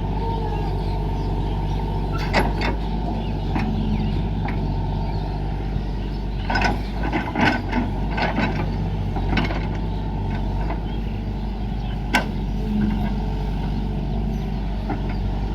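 Excavator's diesel engine running steadily, with scattered knocks and clanks.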